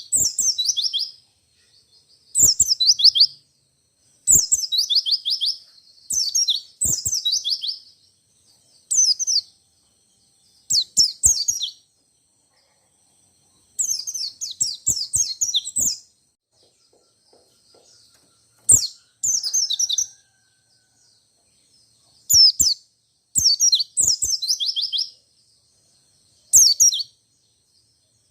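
White-eye (pleci) singing its rolling song: short bursts of rapid, falling high twitters, repeated about a dozen times with short pauses between.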